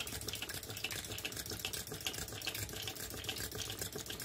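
Water trickling and splashing from the spout of an Empire toy water pump into its tray as a Tarot Stirling engine drives the pump by belt, with a light, regular ticking from the running mechanism.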